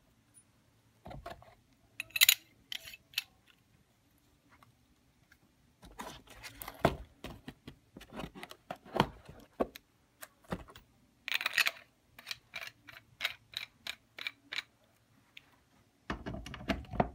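Clicks, taps and light rattles of a Dye M2 paintball marker and its parts being handled: a barrel lifted out of the foam case and fitted to the marker. The clicks come singly at first, then in two busy runs in the middle and later part.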